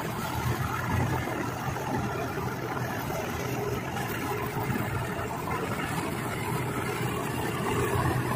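Standard TSC-513 combine harvester running steadily as it drives, a constant low engine and machinery drone.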